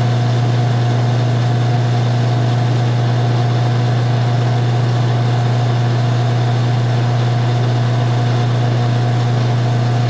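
Craftsman half-horsepower garage door opener motor running with a steady hum as it drives its sprocket through a close cycle, then stopping suddenly near the end.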